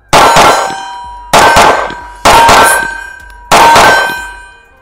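CZ Shadow 2 Compact pistol's slide racked by hand four times on a freshly fitted 14-pound DPM recoil spring, each cycle ending in a loud metallic clang with a ringing tail.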